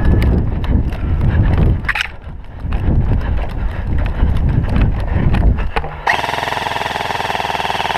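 Thumping footsteps and gear rustle close to the microphone. About six seconds in, an airsoft electric gun fires a full-auto burst: a steady buzzing rattle of about two seconds that cuts off suddenly.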